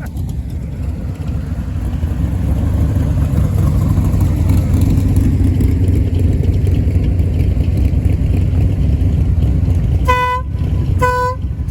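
A car's engine running with a low, steady rumble that grows louder as the car comes close, then two short honks of a car horn near the end, about a second apart.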